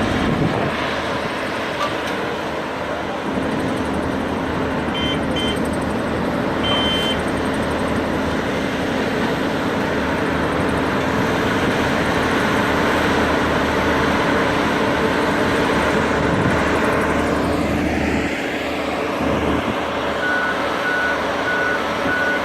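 Heavy road-construction machinery running, a dense steady engine noise with a constant hum. Short high beeps sound twice about five and seven seconds in, and a truck's reversing alarm starts beeping steadily near the end.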